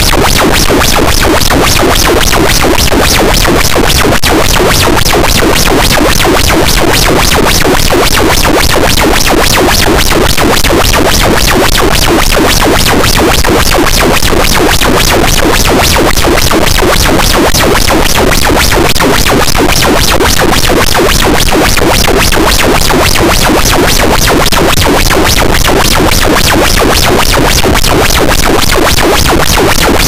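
Harsh noise wall: a dense, distorted wall of static noise at full level, unchanging throughout, with a fast, even pulsing running through it.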